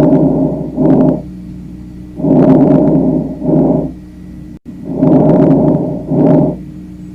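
Normal vesicular breath sounds heard through a stethoscope: three breaths, each a longer rushing inhalation followed after a short pause by a shorter exhalation, about one breath every two and a half seconds.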